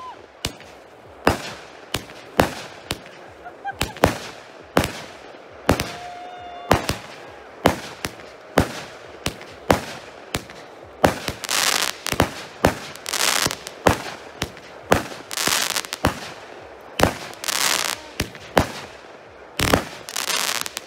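Fireworks going off shot after shot: sharp bangs about once a second, a short whistle partway through, and from about halfway, longer crackling bursts.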